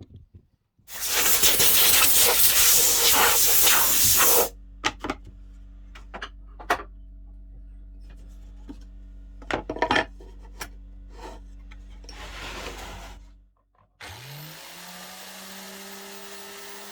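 Loud rushing noise for a few seconds, then a steady low hum with scattered clicks and knocks. After a brief break, an electric power-tool motor spins up with a rising pitch and runs steadily.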